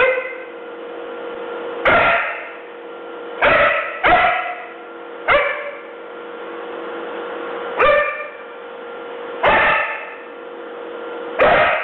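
Young Siberian husky barking in single sharp barks, about seven of them at uneven gaps of one to two and a half seconds. A steady hum runs underneath.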